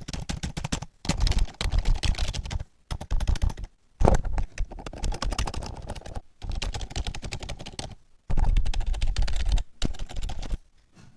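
Zebronics Zeb-K20 wired membrane keyboard being typed on fast: dense runs of key clicks in several bursts with short pauses between them, stopping about ten and a half seconds in.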